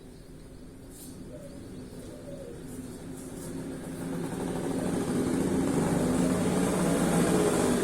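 An engine running and growing steadily louder, most of all from about three seconds in.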